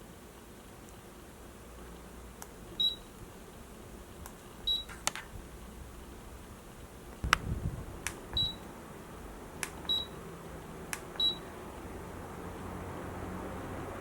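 Control buttons on a Doshisha DC-motor folding fan being pressed: a click and then a short high beep, five times, with a few other clicks and a low thump about seven seconds in. A steady hiss grows louder near the end.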